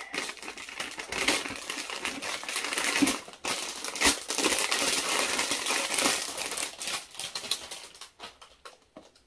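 Clear plastic packaging bag crinkling and rustling as a zippered stethoscope case is worked out of it, a dense crackle of small clicks that thins out over the last second or two.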